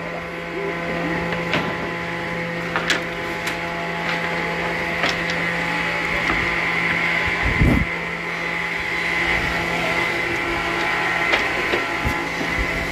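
Woodworking machinery, such as a circular saw, running steadily with a constant hum, with scattered knocks and a heavier thump about eight seconds in as wood is handled.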